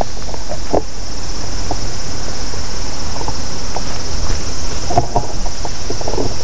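Cicadas buzzing steadily in the trees in a continuous high chorus, over a low rumble. Scattered light clicks and knocks come through it, most of them near the end.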